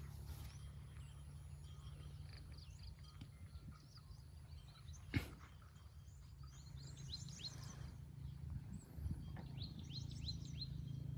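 Faint birds chirping outdoors: runs of short, high, falling chirps over a low steady rumble, with a single sharp click about five seconds in.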